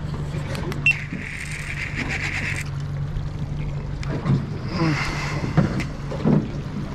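Baitcasting reel buzzing in bursts of about a second and a half as a freshly hooked kingfish is fought on a light jigging rod, over a steady low hum from the boat.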